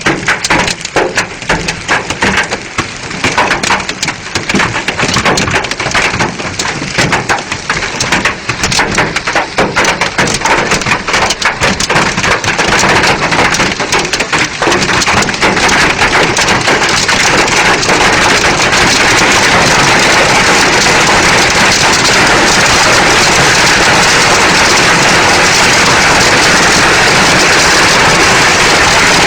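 Heavy rain. At first many separate drops crackle as they strike, then about halfway through they merge into a steady, even downpour that grows louder.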